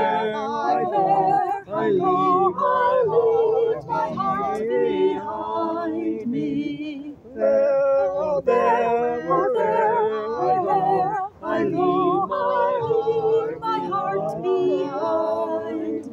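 Mixed-voice a cappella choir singing a part-song, the voices moving together in harmony, with brief breaks between phrases about seven and eleven seconds in.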